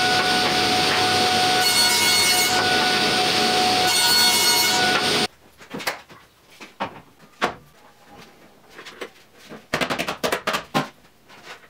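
Table saw running with a steady whine while ripping a panel, for about five seconds, then cut off abruptly. Afterwards, a scatter of light knocks and clicks from cut wooden pieces being handled and laid down, busiest near the end.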